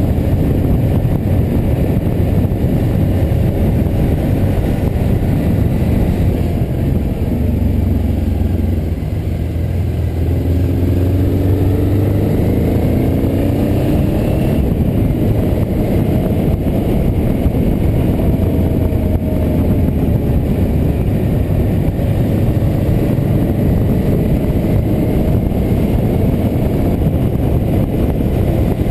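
A motor vehicle driving: steady engine and road noise, with the engine's pitch rising a few times between about eight and fifteen seconds in as it speeds up.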